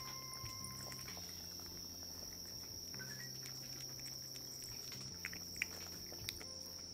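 Insects, crickets by the sound of it, chirring in one steady high-pitched drone, with a couple of faint clicks about five and a half and six seconds in.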